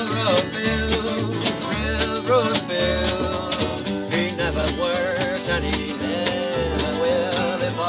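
Acoustic string band playing an instrumental passage: strummed acoustic guitars, a double bass pulsing on the beat, a pizza box tapped as percussion in a steady fast rhythm, and a wavering lead melody over the top.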